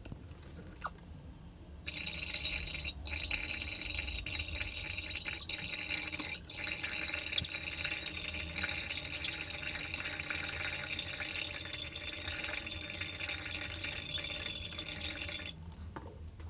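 Water pouring in a steady stream from a plastic bottle into a plastic bowl, starting about two seconds in and stopping shortly before the end. A few short, sharp high-pitched sounds stand out above the pouring.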